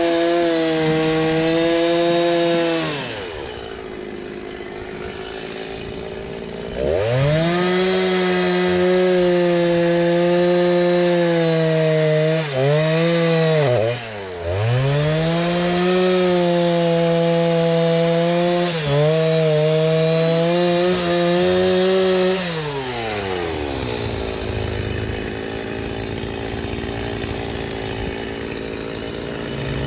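Two-stroke chainsaw cutting dried oak logs into firewood lengths: running at full throttle, dropping to idle about three seconds in, revving up again a few seconds later with its pitch dipping briefly a few times, then falling back to idle for the last several seconds.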